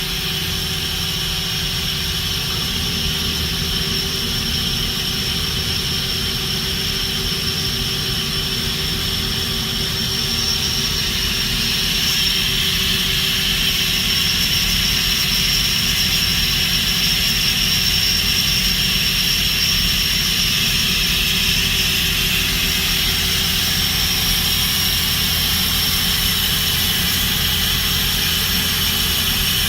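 Mori Seiki NT4300 CNC turning center running: a steady machine hum with a high, even whine over a low rumble, growing a little louder about twelve seconds in.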